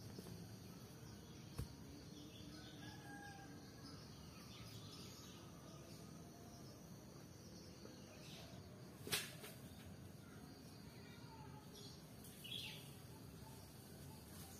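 Quiet forest ambience with faint bird chirps. There is a small click about a second and a half in, and a sharp knock about nine seconds in as a flat stone slab is set down on stone supports.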